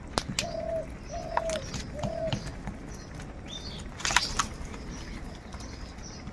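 Crows calling: a run of short, arched caws about a second apart, over higher chirps from other birds. Sharp clicks are scattered through, and a louder harsh burst comes about four seconds in.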